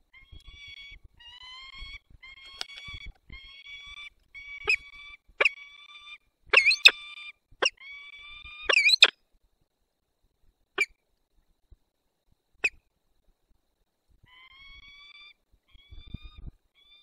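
Peregrine falcon calling at the nest: a string of drawn-out, slightly rising wailing notes about once a second, mixed with sharp chips that are loudest about six to nine seconds in. After a gap there are two lone sharp chips, and a few more wailing notes near the end.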